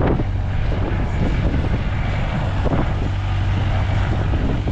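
Strong gusting wind buffeting the microphone: a loud, steady low rumble.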